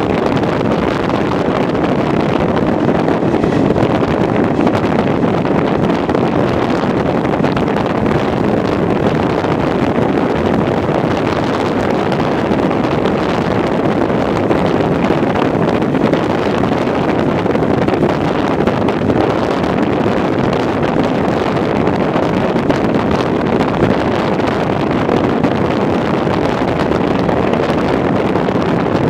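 Train behind an Irish Rail 071 class diesel locomotive running at speed, heard from an open carriage window: wind rushing over the microphone on top of a steady running rumble.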